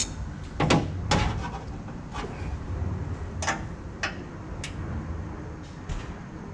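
Sharp clicks and knocks of tools and metal parts being handled during work on a car, about six separate strikes spread over a few seconds, the loudest near the start, over a low steady hum.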